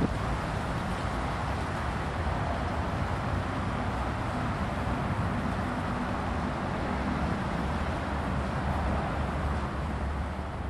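Steady outdoor background noise: a deep, even rumble with a hiss over it and no distinct events.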